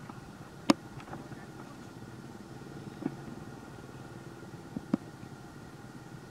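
Steady hum of a motor vehicle engine running in the background, with a few short sharp clicks, the loudest under a second in.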